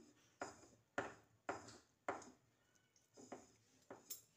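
Hands working a stuffed green chilli through thick batter in a bowl: faint wet taps and squelches, about one every half second.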